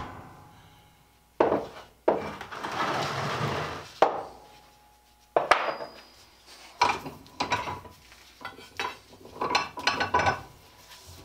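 Flat steel bar knocking and scraping against the jaws of a bench vise as it is set in place, a few sharp clanks with a rough scrape between them, then a run of quicker metallic clinks as the vise handle is worked to clamp it.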